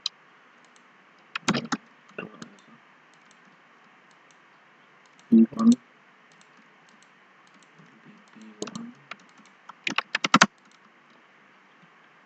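Computer keyboard keystrokes in short, scattered clusters of clicks, with a quick run of taps near the end; the loudest is a pair of heavier knocks about five seconds in.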